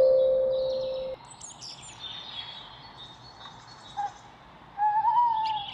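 A lotus tongue drum note rings and fades, stopping about a second in. Then birds chirp and trill, with a louder wavering whistled call near the end.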